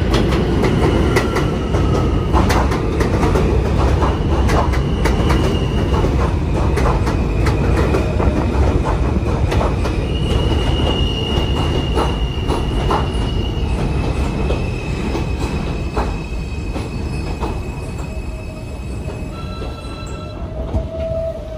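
New York City subway L train running along the track with a loud, steady rumble and frequent clicks of wheels over rail joints, while its wheels squeal in long, steady high tones that step in pitch. The rumble eases over the last few seconds.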